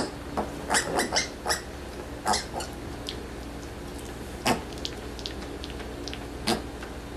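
Young piglets giving a string of short, high squeaks and grunts as they nuzzle against a cat. The calls come thick in the first few seconds, then a few more spaced out later.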